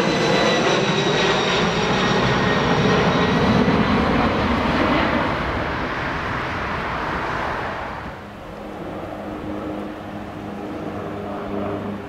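Airbus A320's twin jet engines at go-around thrust as it climbs away overhead: a loud roar with high whining tones that slide slightly lower and fade over the first several seconds. About eight seconds in, the sound drops to a quieter, steadier engine drone with a low hum.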